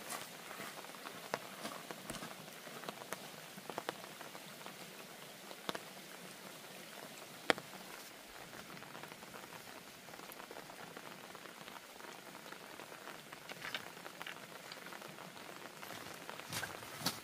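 Steady rain hiss with scattered sharper drips and taps, one louder tap about halfway through.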